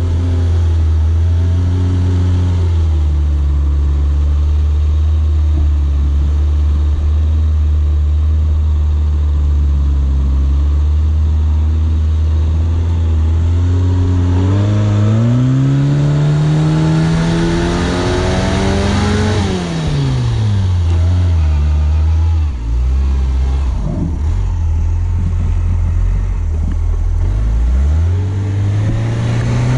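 Suzuki SJ410's four-cylinder petrol engine running at low revs under load, revving up steadily about halfway through and dropping back, then labouring unevenly at low revs before picking up again near the end.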